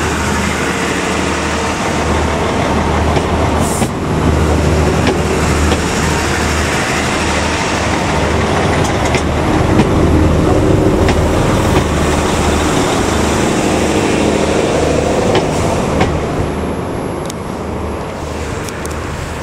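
Northern Ireland Railways Class 3000 diesel multiple unit pulling into a station platform, its underfloor diesel engines running with a steady hum and a few sharp clicks from the wheels on the track. It quietens near the end as it slows.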